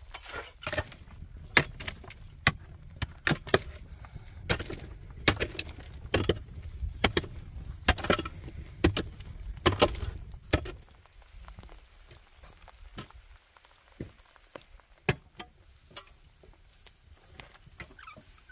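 A series of sharp knocks or strikes, about one or two a second over a low rumble, thinning to a few fainter knocks after about ten seconds.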